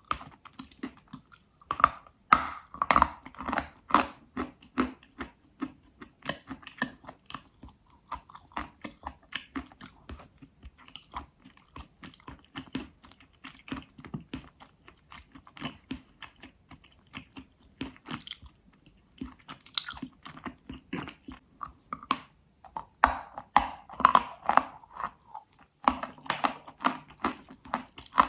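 Astana edible chalk being bitten and chewed up close: a run of sharp, dry crunches several times a second, with short pauses about 18 seconds in and again near 26 seconds.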